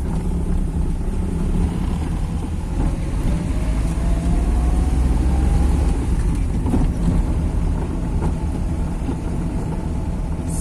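Car engine and road rumble as the vehicle climbs a steep hairpin-bend mountain road, with the engine note rising gradually for a few seconds in the middle.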